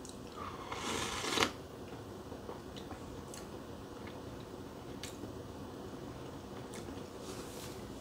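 A sip drawn from a cup of latte, a short slurp about a second in, followed by a few faint clicks and low room tone.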